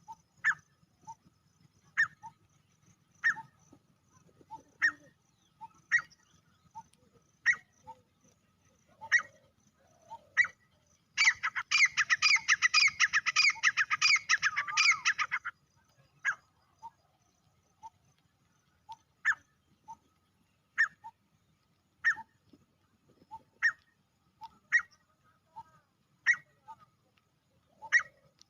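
Male grey francolin calling: short sharp notes about every second and a half, broken near the middle by a loud, rapid run of repeated calls lasting about four seconds.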